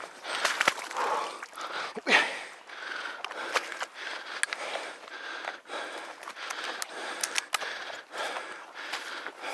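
Footsteps and rustling of a person walking with the camera, with irregular clicks and bumps of handling noise.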